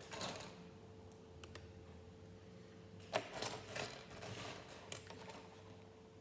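Small plastic LEGO pieces being handled: a sharp click about three seconds in, followed by a couple of seconds of light clicking and rattling, over a faint steady hum.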